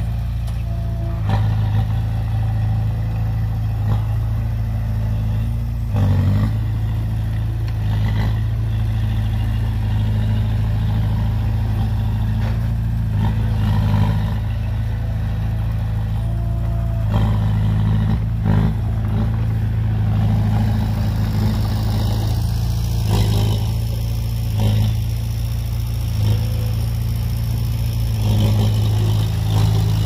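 Diesel engine of earthmoving machinery running steadily under work, with occasional short knocks.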